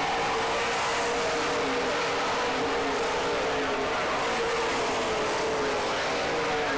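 Several oval-track stock cars running at speed together, their engines a steady drone whose pitch drifts slowly as they circle the track.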